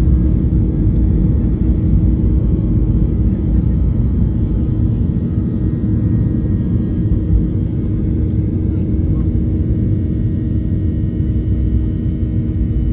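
Boeing 737-800's CFM56 engines and airflow giving a steady, deep drone in flight, with a constant hum running through the rumble.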